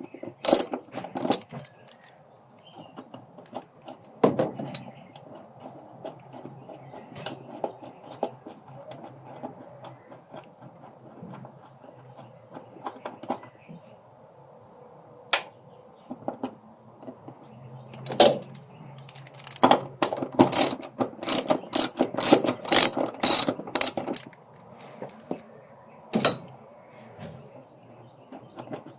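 Socket ratchet wrench clicking as 10mm bracket bolts are worked loose: scattered clicks, then a quick run of rapid ratcheting about two-thirds of the way through, with a single sharp metal knock near the end.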